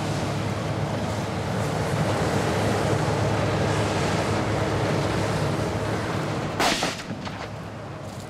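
Combine harvester running steadily while cutting rapeseed, a continuous mechanical drone. About six and a half seconds in comes a single sharp bang, after which the drone is quieter.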